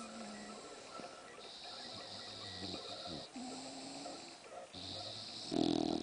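English bulldog snoring in slow breath cycles, alternating between a hissing rasp and a low steady tone, with a louder snore near the end.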